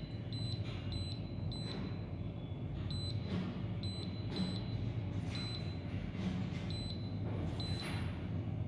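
Touch control panel of a Haier vertical freezer beeping as its buttons are pressed: about a dozen short, high beeps at uneven intervals, over a low steady hum.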